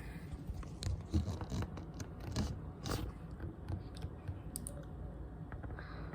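Irregular scratching and small clicks of handling noise, with a few sharper clicks in the first three seconds.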